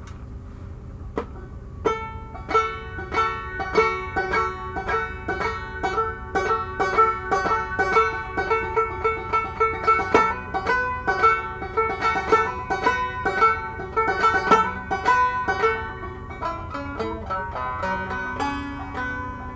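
Solo banjo playing an old-timey blues tune: a single plucked note about a second in, then a steady run of quickly picked, ringing notes from about two seconds in, easing to softer, lower notes near the end.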